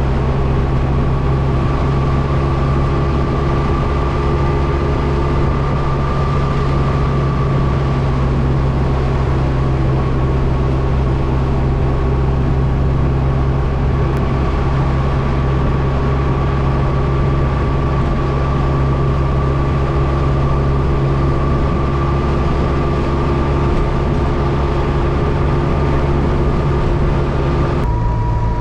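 A 1984 Trabant 601S's air-cooled two-stroke 594 cc two-cylinder engine running under way at a steady pitch, with a thin steady whine above it. Just before the end the engine note changes and drops in pitch.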